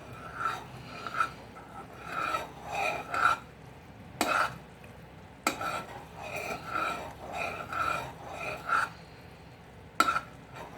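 A spoon scraping around a pan of boiling sugar syrup as it is stirred, in strokes of about one or two a second. A few sharper knocks of the spoon against the pan come through, a little after four seconds in and again near the end.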